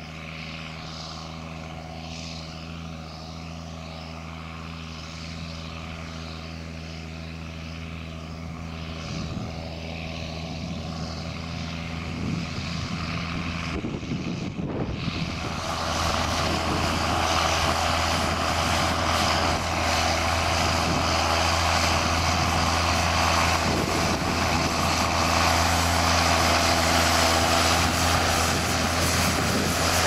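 John Deere 7810 tractor's six-cylinder diesel engine running steadily under load while pulling a reversible plough. It is fainter in the first half and louder from about halfway, as the tractor draws near.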